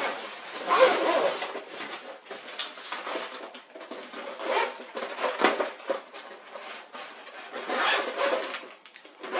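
Zipper on a Comica fabric microphone carry case being pulled along to close it in several short, uneven rasps, mixed with the rustle of the case being handled.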